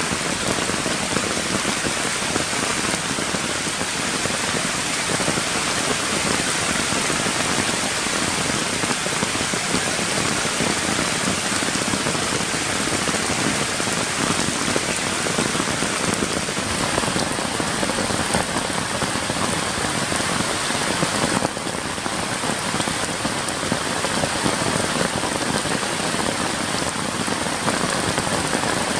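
Steady heavy rain falling on wet ground, puddles and fallen leaves, an even hiss of drops with no break.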